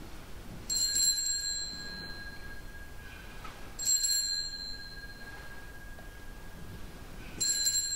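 Small altar bell (sanctus bell) struck three times, about three seconds apart, each strike ringing on and fading. It marks the consecration of the bread in the Eucharist.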